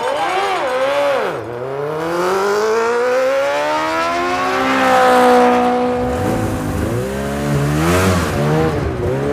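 A motor vehicle engine revving: its pitch dips, climbs steadily for a few seconds and holds, then revs up and down quickly near the end.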